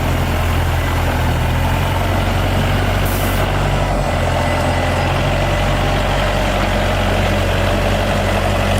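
Excavator's heavy diesel engine running steadily, with a short hiss about three seconds in.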